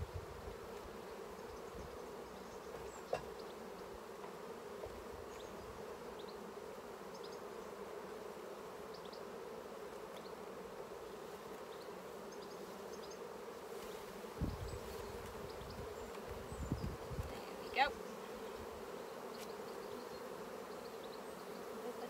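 Honeybees from an open hive humming steadily as a dense, even drone. A few low thumps and faint clicks of handling come about two-thirds of the way through.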